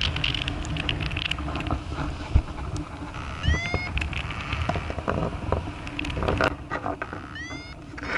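Wind rushing over the microphone in free flight, a steady low rumble with scattered clicks. Two short rising chirps sound about 4 seconds apart.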